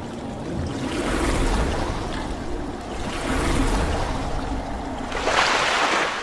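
Water splash and whoosh sound effects for an animated logo intro: rushing water swelling about a second in and again a couple of seconds later, then a louder, brighter splash near the end.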